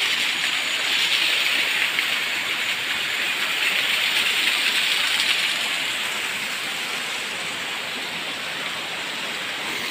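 Water from a small waterfall splashing down over rocks: a steady rushing hiss that gets a little softer in the second half.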